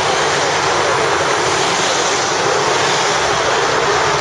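Roadside crowd cheering and clapping, a loud steady roar of noise.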